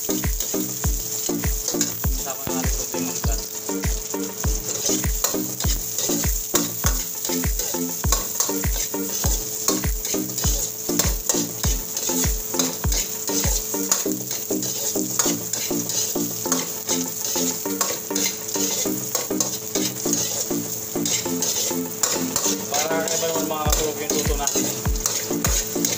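Ginger strips sizzling in hot oil in a steel wok while a metal ladle stirs and scrapes them, with a steady hiss and frequent clinks and scrapes of metal on metal.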